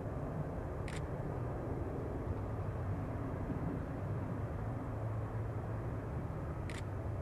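Boeing 747-400F freighter's four jet engines running at low thrust while taxiing, a steady low rumble. Two brief high-pitched chirps cut through it, about a second in and near the end.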